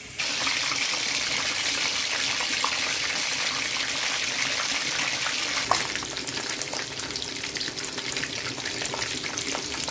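Chicken leg quarter going into hot oil in a frying pan: a loud sizzle starts abruptly as it goes in and keeps up steadily, peppered with crackles and spits, with one sharper pop about halfway through, after which the sizzle eases slightly.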